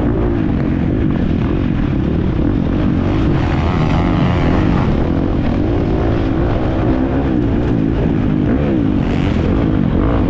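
Husqvarna FC350 motocross bike's 350 cc four-stroke single-cylinder engine under race load, its pitch rising and falling repeatedly as the throttle is worked on and off.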